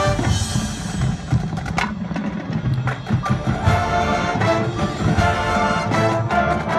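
Marching band playing: a held wind chord breaks off at the start, followed by scattered percussion strikes, then brass and woodwind chords come back in and fill out from about halfway.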